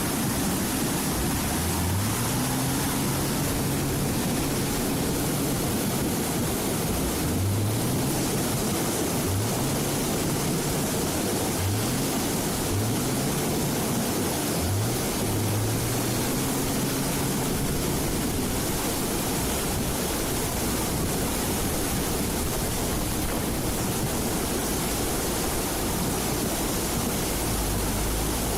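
Bulldozer's diesel engine revving up again and again, each rev a rising tone that levels off and holds, over a steady loud rushing noise.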